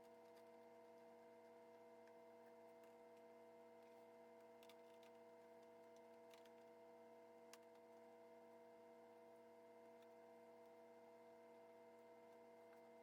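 Near silence: a faint steady hum, with a few faint clicks around the middle.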